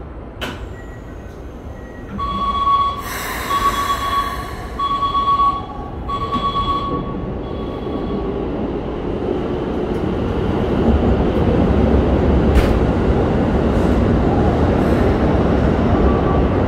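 Door-closing warning beeps sound in four pulses on the platform, then a Keikyu commuter train starts to pull out of the station, its rumble of motors and wheels growing steadily louder.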